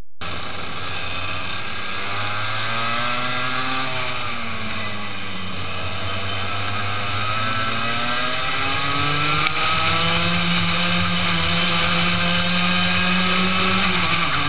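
Daytona Max racing kart's engine at racing speed, close to the microphone, its revs climbing, dropping back, then climbing again and holding high before falling away near the end.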